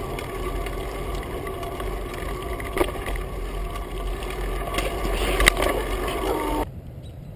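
Wind and road rumble picked up by a camera on a moving bicycle, with a few sharp knocks and rattles; the loudest knock comes about five and a half seconds in. The sound drops off suddenly shortly before the end.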